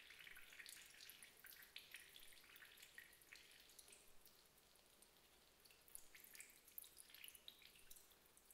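Faint, irregular dripping and small wet ticks of water from unfired clay figures softening in a shallow pool, busier near the start and again past the middle.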